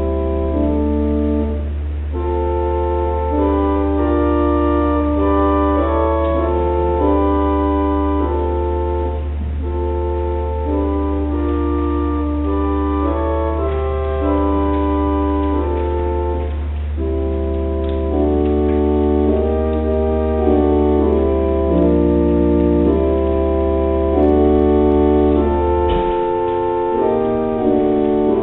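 Organ playing slow music in sustained, overlapping chords over a held low bass note, which drops out near the end as the bass line moves.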